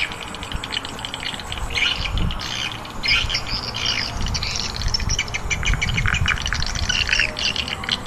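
Dense, busy chirping of many small birds, a flock calling over one another without pause, with some dull low knocks beneath it.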